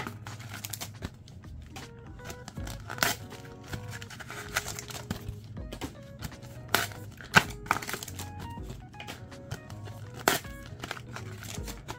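Background music with a steady melody, over crinkling of plastic foil packaging as booster packs are handled. A few sharp crackles stand out above the music.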